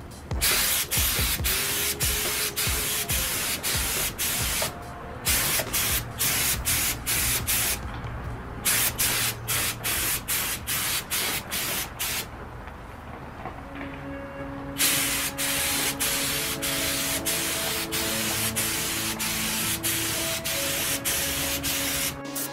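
Harbor Freight gravity-feed spray gun, fed by an air hose, hissing as it sprays black base coat, in long passes broken by short pauses, the longest a couple of seconds past the middle.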